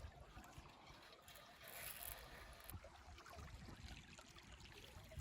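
Faint river water trickling and lapping around a boat, then one sharp knock on the boat at the very end.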